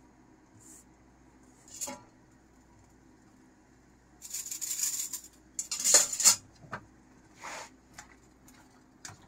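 Chopped bell pepper and green beans tipped off a plastic cutting board into a wok of simmering curry. A few light knocks come first, then a loud clattering rush about halfway through as the beans slide in, followed by scattered clinks.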